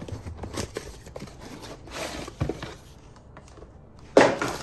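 Rustling and small clicks of a bag of geodes being opened and handled, with one louder short rustle about four seconds in.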